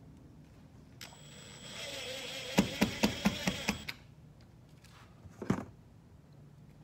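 Makita cordless impact driver running a screw into wooden wall boards: the motor whirs with a high whine, then breaks into a quick run of about eight sharp clacks as the hammer mechanism impacts while the screw seats, and stops. A single knock comes a second or so later.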